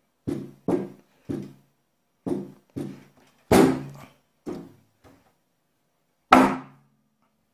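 Stretched sheet steel of a car door panel popping in and out under pressure (oil-canning), about nine thunks with a brief low ring, the loudest two about halfway through and near the end: the sign of stretched metal around a dent that will not hold its shape.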